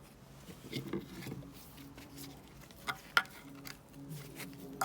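Hand tools and steel suspension parts clinking and scraping during work on a rusted car front subframe. There is some rattling about a second in, then two sharp metallic clicks near the three-second mark.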